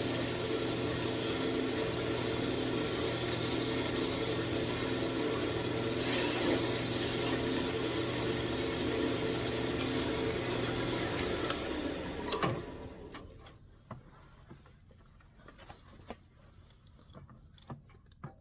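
Wood lathe running with a steady motor hum and a louder hissing stretch in the middle, then switched off about twelve seconds in, its pitch falling as it spins down. A few faint light clicks follow.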